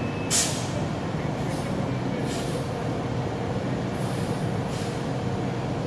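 Fire apparatus diesel engine idling in the station bay, with several short air-brake hisses; the loudest hiss comes about half a second in.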